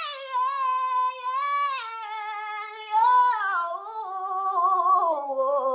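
A woman singing long, high, wavering notes, the pitch sliding downward near the end.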